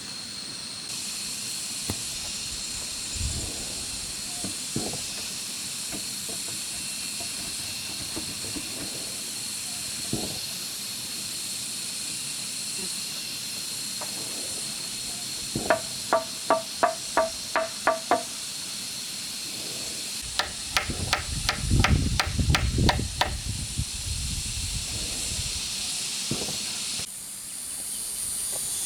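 Two runs of quick, evenly spaced strikes on bamboo: first about nine sharp knocks with a hollow ring, then about ten duller, heavier blows. They sound over a steady high drone of forest insects.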